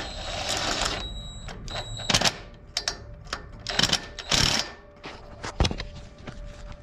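Hand tools working on the starter mounting bolts of a Briggs & Stratton opposed-twin engine: a scraping rustle in the first second, then irregular metallic clicks and clinks as a bolt is fitted and tightened with a wrench.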